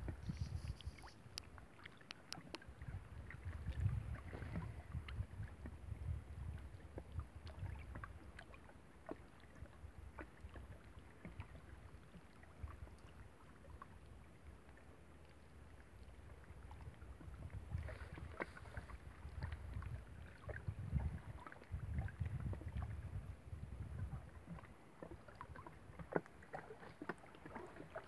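Faint small waves lapping and splashing against the rocky shoreline, in scattered little clicks, with wind buffeting the microphone in low rumbling gusts that swell and fade.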